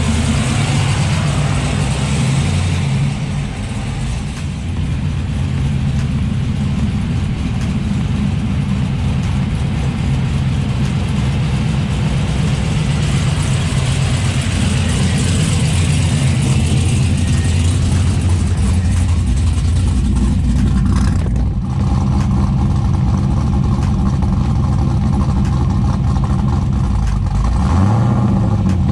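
Third-generation Camaro engine running at idle, heard low beside the car near its exhaust, with a brief rise in pitch near the end like a light blip of the throttle.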